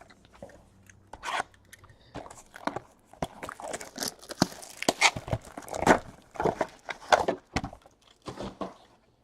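Foil trading-card pack wrappers crinkling and tearing, with the rustle and snap of cards being handled. The sound is a run of irregular sharp crackles, busiest in the middle few seconds.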